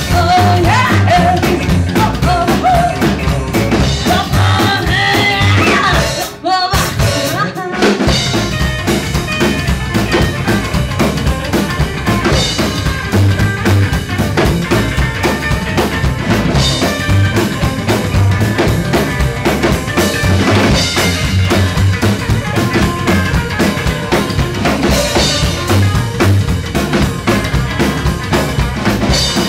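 Live rockabilly band playing: slapped upright bass, electric guitar and drum kit keeping a driving beat, with a woman singing for the first few seconds. About six seconds in the band briefly drops back, then carries on instrumentally.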